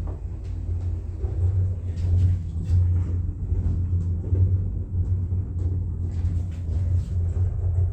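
Lift car travelling: a steady low rumble with scattered clicks and knocks.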